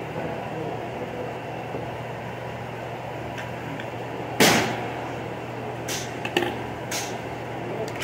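A single gunshot a little past halfway, sharp and loud with a short echoing tail, over a steady background hum. A few fainter sharp clicks follow.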